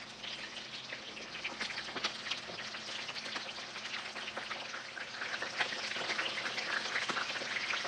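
Chicken pieces frying in a pan of hot oil: a steady sizzle full of small crackles and pops.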